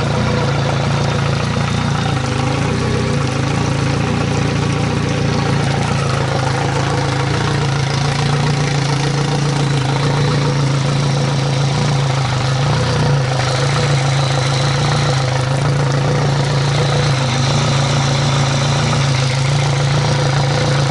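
Yamaha F115 four-stroke outboard idling steadily while fresh water from a garden hose flushes its cooling passages: the final rinse after a chemical descaling.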